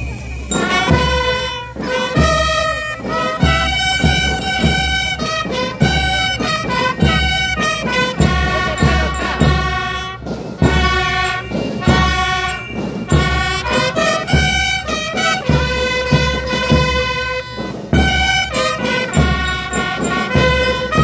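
A Peruvian banda de guerra (drum-and-bugle band) playing: brass bugles sound long held notes over a steady beat of drums and heavy bass-drum thumps.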